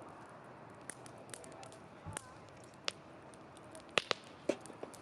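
Wood campfire crackling: scattered sharp pops over a soft steady hiss, the loudest few about four seconds in.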